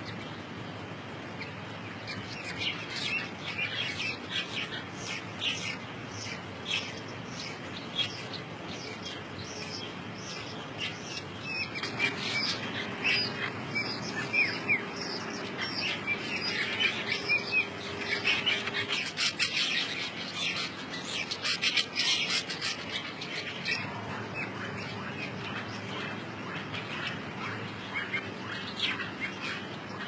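Weaver birds chattering: a rapid, busy stream of short high chirps and squeaks, thickest in the middle and thinning out near the end.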